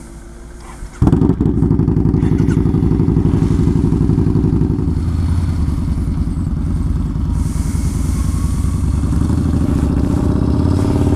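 Yamaha Bolt XV950R's V-twin engine running steadily, coming in suddenly about a second in.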